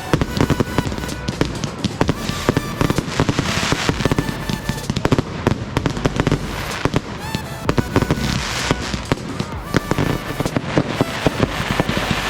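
Fireworks display: a dense run of bangs and crackling, with a couple of rising whistles from rockets going up, over music with held notes.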